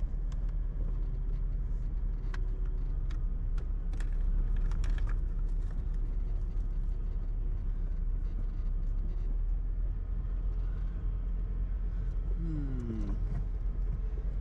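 Steady low road rumble of a vehicle being driven, with scattered light clicks and a brief falling whine near the end.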